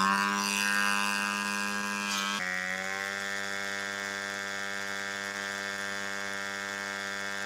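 Small target drone's piston engine running on its launcher at a steady high buzz, dipping slightly in pitch about two and a half seconds in.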